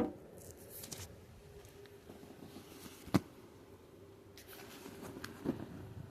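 A sharp click at the start and a louder one about three seconds in, with short bouts of faint rustling between them, over a low steady hum.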